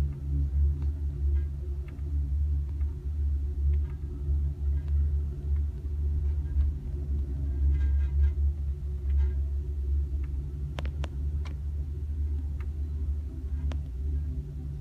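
Low steady rumble inside a passenger train car rolling slowly along the track, with scattered faint clicks and ticks.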